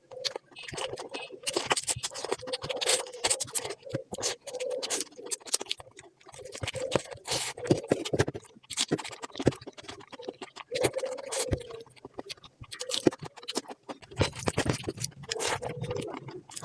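Close-miked eating sounds: chewing and mouth noises, a dense irregular run of clicks and smacks.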